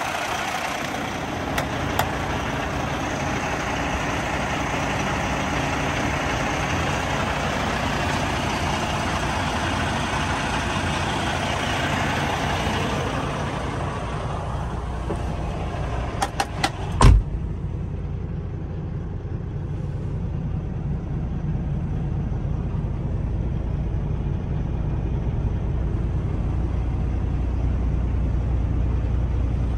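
Cummins X15 inline-six diesel idling, heard first with a loud hiss around it and then muffled and deeper. A few clicks and one loud thump just past halfway, a truck cab door shutting, mark the change.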